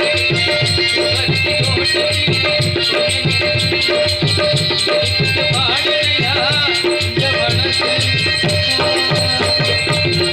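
Live Tamil folk stage-drama music: a drum beating fast and steady, about five strokes a second, with bright cymbal-like ticks over held sustained notes and a sliding melody line. The music stops abruptly at the very end.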